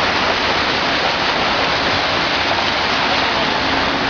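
Heavy rain shower: a steady, even hiss of downpour.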